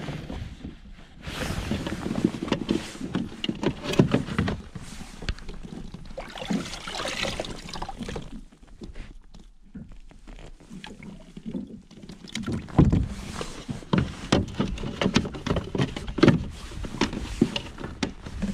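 Native Slayer kayak's pedal drive unit being lifted out of its drive well and set back in: irregular knocks and clunks of hard plastic, with a quieter stretch in the middle.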